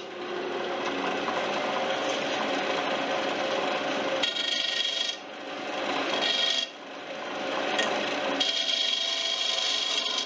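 King Canada wood lathe spinning a laminated Western red cedar paddle shaft while a hand-held turning chisel cuts into the wood with a steady rasping scrape over the lathe's hum. The cutting eases off briefly twice near the middle as the tool lifts, then resumes.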